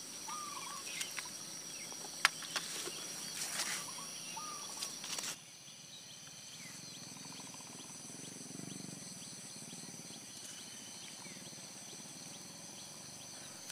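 Outdoor lakeside ambience: a steady high insect trill with a few short bird chirps, and several sharp clicks in the first five seconds. The sound drops to a quieter hush about five seconds in.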